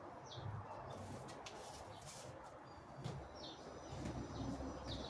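Faint birds outside: a few short, high, falling chirps, with soft low cooing like a dove's.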